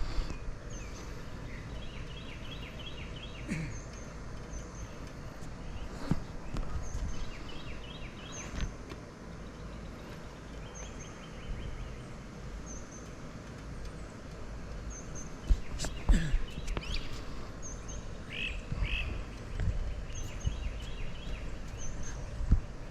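Outdoor ambience: birds chirping over and over with short, high calls every second or two, and a few quick chirp runs. Scattered sharp knocks and thumps come over a steady low rumble, with the loudest knocks about two-thirds of the way in.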